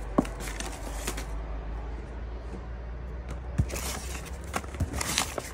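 Paper rustling with scattered light clicks as a pile of old cards and envelopes is handled and sorted through, over a low steady hum.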